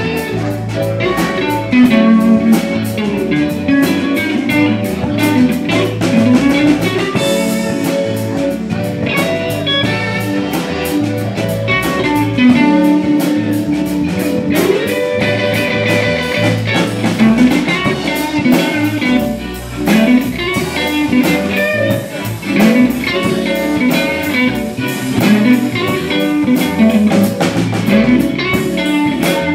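Live band playing an instrumental: a Stratocaster-style electric guitar takes the lead with bending, sliding notes over a drum kit with steady cymbal and drum strokes and an electric keyboard.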